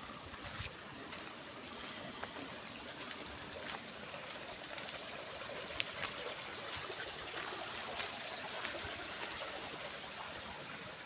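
Steady rush of running water, as in a roadside concrete drain, growing slightly louder toward the middle, with a few faint scattered ticks.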